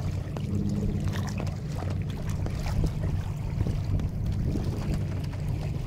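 Wind buffeting the microphone over water rushing and splashing against the hull and outrigger float of a Klepper Aerius II folding kayak under sail, with many small spatters of spray.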